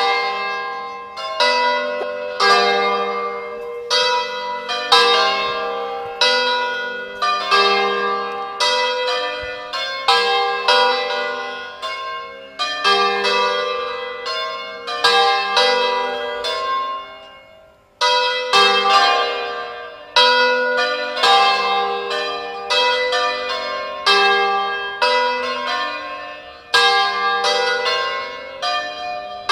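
Fully hand-rung church bells, post-war castings by Giacomo Crespi of Crema, swinging full circle (a distesa) so that their clappers strike in quick, overlapping succession, each stroke ringing on as it fades. The ringing dies away briefly about 18 seconds in, then picks up again.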